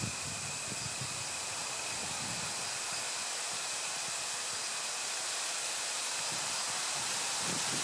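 Steady outdoor background hiss with a faint thin high tone running through it, and soft low rumbles of wind on the microphone just after the start and again near the end.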